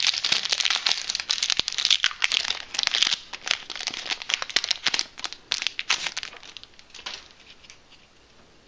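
Foil Yu-Gi-Oh booster pack wrapper crinkling and tearing as it is opened by hand, a dense rapid crackle that dies away about seven seconds in.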